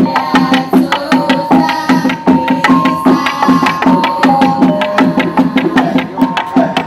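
Gubrak lesung: several long wooden pestles striking a hardwood rice-mortar trough (lesung), knocking in a fast, steady, repeating rhythm. A held, higher tone that shifts in pitch now and then sounds over the knocking.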